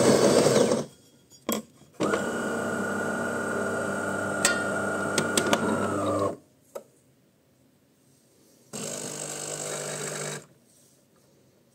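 Coffee machine running its motor in three separate runs as it makes a coffee. A loud run stops under a second in, a steady run of about four seconds with a high whine follows, and a shorter, quieter run comes near the end. A few clicks fall between them.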